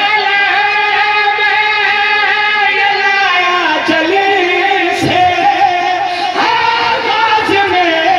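A man's voice chanting long, held, wavering notes over a microphone, amplified through a public-address loudspeaker, sliding down in pitch a few seconds in and rising again later, in the melodic style of a majlis elegy recitation.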